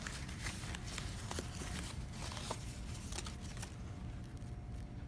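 Light rustling and crinkling of packaging with a few small clicks as the camera gear is handled, dying down after about three and a half seconds.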